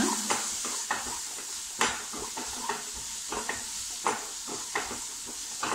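Wooden spatula stirring and scraping an onion-tomato masala around a non-stick kadai, about two strokes a second, over a steady sizzle of the masala frying with its freshly added spice powders.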